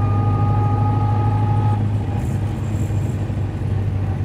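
Ford Model A's four-cylinder engine running steadily as the car cruises, a constant low hum with road noise. A fainter steady high whine sounds alongside it and stops about two seconds in.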